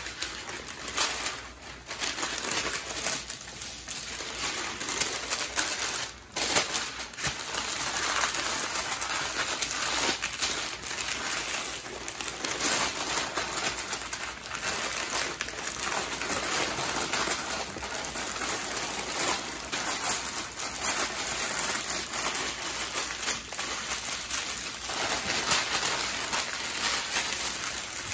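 Paper rustling and crinkling as it is folded and pressed around a smoked brisket by hand.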